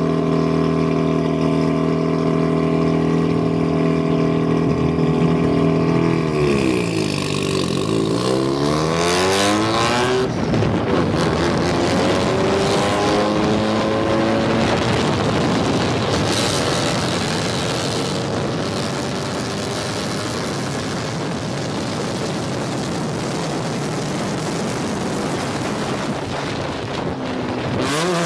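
Drift car engine held at steady revs for several seconds, then the revs drop and climb again. After that the engine rises and falls in pitch over a loud, noisy rush, typical of a car sliding through a drift.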